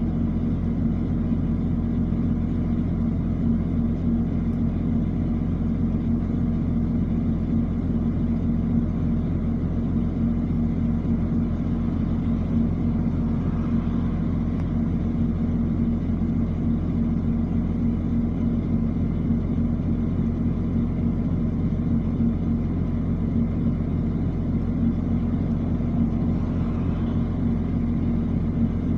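Isuzu 4HK1 four-cylinder diesel engine idling steadily with a low, even rumble and no change in speed.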